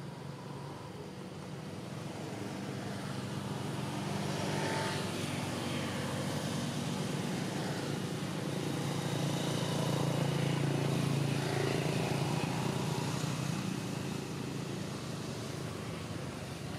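A motor vehicle engine running with a steady low hum that grows louder to a peak about ten seconds in and then eases off.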